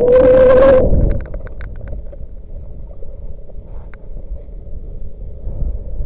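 Strong wind buffeting the microphone, a heavy low rumble. It opens with a loud, steady whine lasting under a second, followed by a quick run of clicks.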